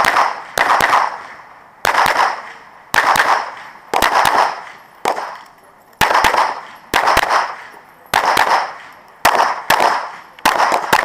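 9mm Glock 34 pistol fired rapidly in close double taps, pairs of shots about a second apart, each shot followed by a short fading ring.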